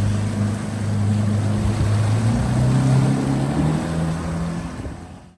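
Evinrude outboard motor running under way, with wind and water noise. Its pitch climbs as it is throttled up about two seconds in, and the sound fades out near the end.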